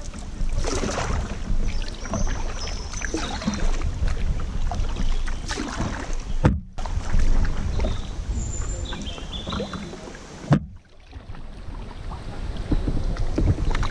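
Kayak paddle strokes dipping and splashing in the water, over a steady low rumble of wind on the bow-mounted action camera's microphone. The sound drops out briefly twice, about halfway and again near the end.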